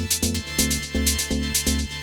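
Background electronic music with a steady, quick beat over a sustained bass line.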